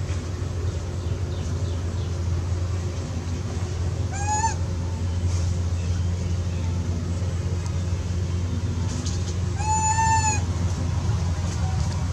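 Two high-pitched arching cries from a young macaque, a short one about four seconds in and a longer one near ten seconds, over a steady low hum.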